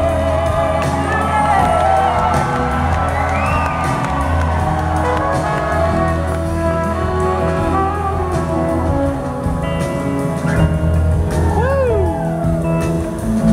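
Live band playing in a theatre, with electric guitar lines that glide and bend in pitch over steady bass and drums.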